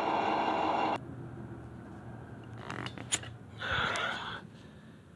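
A steady humming from the running HO-scale model train layout stops abruptly about a second in. It is followed by a few sharp clicks and a short rustle as the phone filming it is handled and moved.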